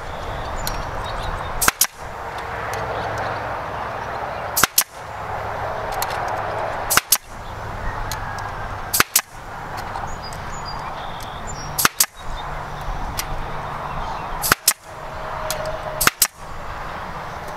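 Pneumatic stapler firing staples through wire mesh into a wooden frame: about seven shots two to three seconds apart, each a sharp double crack.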